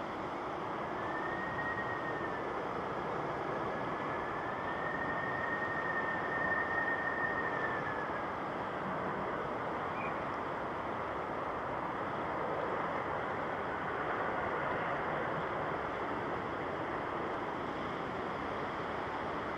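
Jet airliner engine noise, a steady rush with a thin high whine that wavers for the first several seconds and then fades into the rush.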